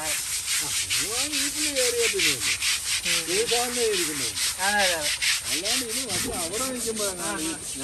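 Rhythmic scrubbing of an elephant's hide during its bath, quick scraping strokes about four to five a second.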